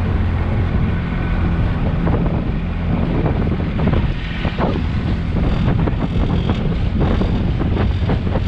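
Johnson 35 hp two-stroke outboard running steadily at speed, pushing an aluminium boat through choppy water, with water rushing and splashing along the hull. Heavy wind buffets the microphone throughout.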